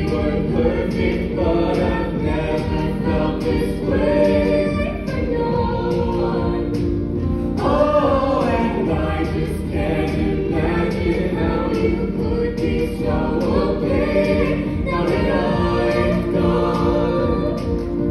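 A musical-theatre cast singing together as a choir over instrumental accompaniment with a steady beat.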